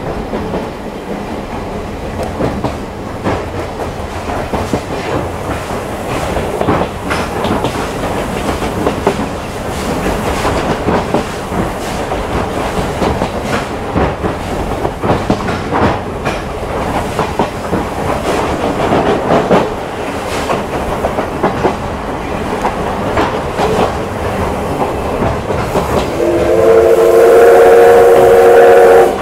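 Inside a vintage passenger coach running on jointed track: wheels clattering over the rail joints with irregular knocks and rattles. Near the end a steam locomotive's whistle sounds loudly and steadily for about three seconds.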